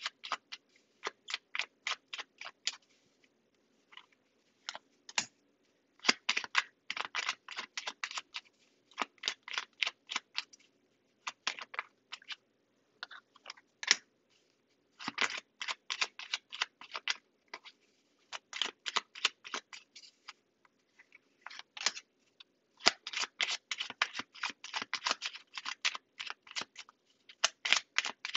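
A deck of tarot cards being shuffled in the hands: quick runs of crisp card clicks and flicks, coming in bursts with short pauses between.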